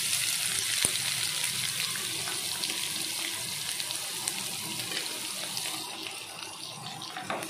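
Thinly sliced onions sizzling in hot mustard oil in a kadhai, a dense hiss that starts as they go in and slowly dies down after about six seconds.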